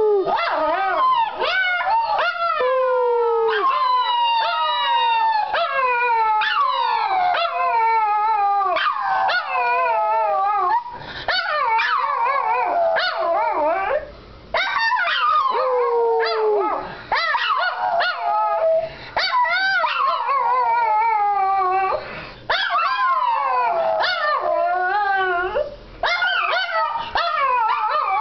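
Two Shih Tzus howling together in long, wavering, overlapping howls that mostly slide down in pitch, with brief pauses for breath every few seconds.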